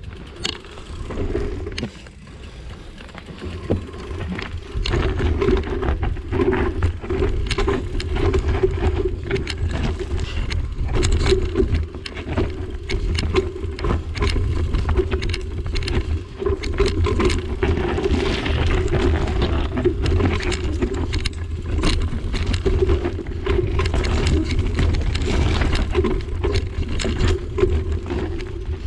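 Mountain bike descending a rocky dirt trail: a heavy steady rumble with the knobby tyres crunching over loose stones, and frequent sharp clatters and knocks as the bike rattles over rocks. It gets louder about four seconds in as the speed picks up.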